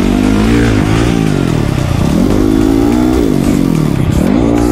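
Dirt bike engine revving hard, its pitch falling and climbing again several times as the rider rolls off and back on the throttle.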